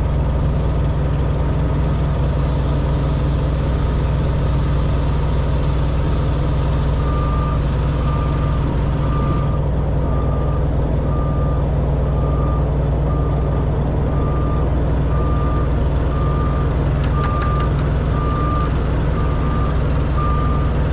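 A heavy vehicle engine runs steadily, and from about seven seconds in a backup alarm beeps about once a second as a vehicle reverses.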